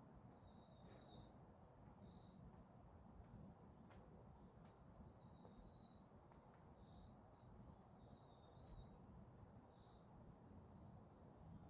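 Faint birds chirping: many short high chirps and a few brief level whistles, scattered throughout, over a steady low background rumble.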